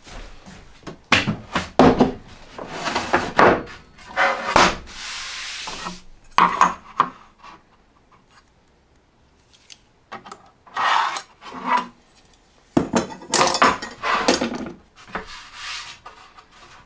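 Workshop handling of wood: a run of knocks and clatters mixed with short rubbing or scraping strokes, in clusters with a quiet pause of a few seconds in the middle.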